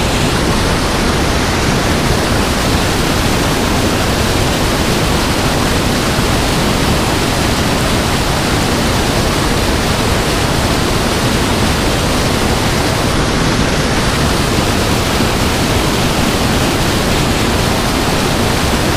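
Spillway outflow pouring into the river as churning white water: a loud, steady rush of water.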